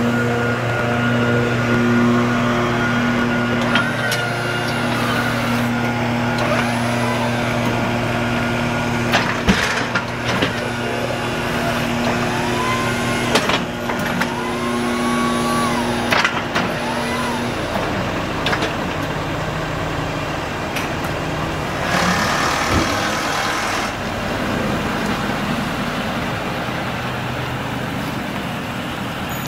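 Ford F-450 Super Duty dump truck's engine idling steadily, a low even hum that turns rougher and less pitched a little past halfway. A few sharp clicks and a brief hiss are heard over it.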